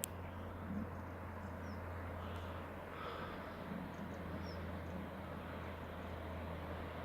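Quiet outdoor ambience: a steady low hum with a few faint high chirps. There is a brief click right at the start.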